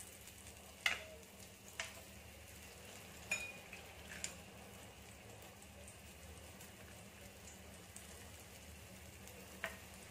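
Semolina-coated clams shallow-frying in oil on a flat tava pan over a medium flame: a soft, steady sizzle with a few sharp crackles and pops.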